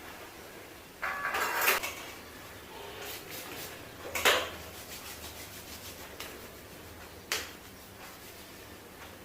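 Objects being handled and set down: a short rattling clatter about a second in, a sharp knock a little past four seconds, which is the loudest sound, and a lighter click near seven seconds, over quiet room noise.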